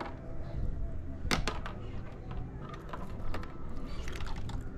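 Scattered clicks and knocks of fish and a rope stringer being handled on a plastic kayak deck, over a low steady rumble.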